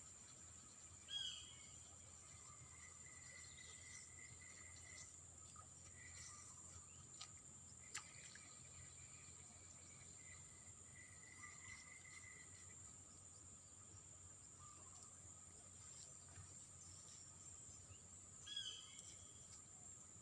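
Faint outdoor ambience of insects and birds: a steady high-pitched insect drone with a broken, lower trilling over it, and two short bird calls, one about a second in and one near the end.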